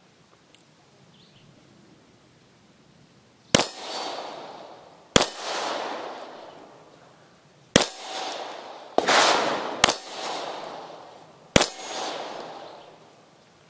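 Polish P-83 9×18mm Makarov pistol fired five times, roughly one and a half to two and a half seconds apart, each shot trailing off in a long echo. Each shot is followed by the clang of the steel reaction plate being hit.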